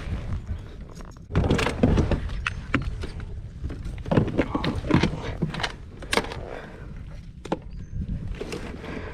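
Handling noise as a largemouth bass is lifted and held over a plastic kayak deck: irregular knocks, thumps and rubs, loudest in clusters around the second and fifth seconds.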